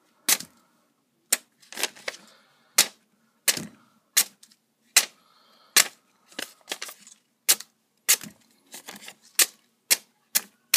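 A very sharp, full-flat-ground N690 steel knife slicing through paper, a crisp snick with each cut, about twenty cuts in uneven succession. The clean, easy cuts are the sign of an extremely keen edge.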